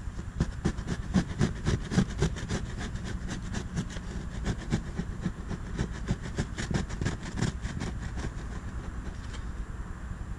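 Cloth pad scrubbed quickly back and forth on a fiberglass boat hull, rubbing off decal adhesive softened by sticker remover: a rapid, rhythmic run of rubbing strokes, several a second, that thins out near the end, over a low steady rumble.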